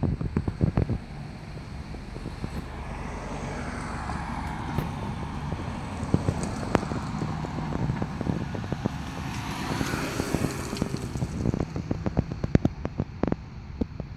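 Outdoor background noise: a steady low rumble with a broad rush that swells through the middle and fades, like road traffic passing. Scattered sharp clicks and taps come through it, the loudest near the start and in the last few seconds.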